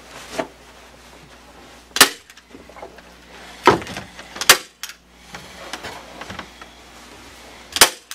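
Upholstery staple gun firing staples into a wooden chair frame: four sharp shots, one about two seconds in, two close together near the middle and one near the end, with fainter handling knocks in between.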